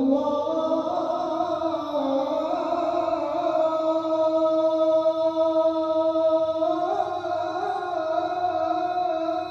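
A male Quran reciter sings one long, ornamented held note of melodic tilawah. The pitch wavers throughout and steps up about seven seconds in.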